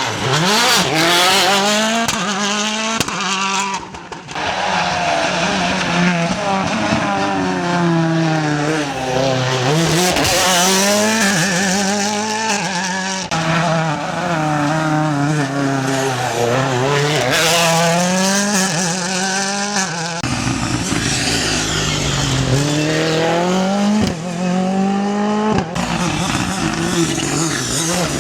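Rally cars' engines revving hard through a special stage, the pitch climbing and dropping again and again with gear changes and lifts off the throttle; the sound changes abruptly several times as one car's run gives way to the next.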